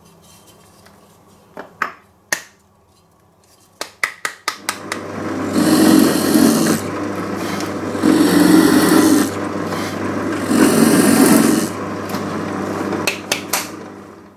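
A few wooden knocks and clicks, then a drill press motor starts and hums steadily while a small bit bores into a solid walnut block in three pushes, each a loud rasping cut. Near the end the motor winds down.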